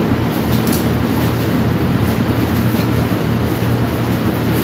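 Steady, loud rumbling hum with a low drone under an even hiss, like a running machine.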